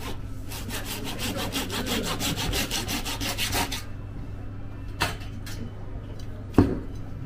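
A blade sawing through a whole bluefin tuna in fast, even rasping strokes, about eight a second, which stop a little past the halfway mark. Two sharp knocks follow, the second the louder, over a steady low hum.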